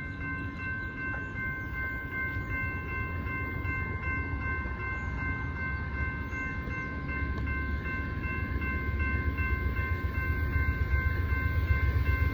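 Low rumble of the approaching Amtrak Texas Eagle train, growing louder over the last few seconds. Over it runs a steady high ringing tone from the railroad crossing's warning device. The crossing's mechanical bell is not working.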